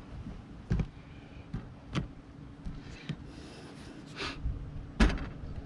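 Light knocks and clicks of a plastic rooftop TV antenna being handled and pressed down on an RV roof, about half a dozen, the loudest near the end, over a low steady hum.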